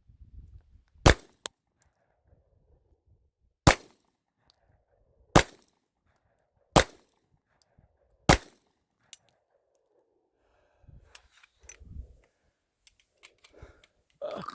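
Smith & Wesson M&P9 9mm pistol fired five times in slow single shots, about one and a half to two and a half seconds apart. Faint clicks and handling noise follow near the end.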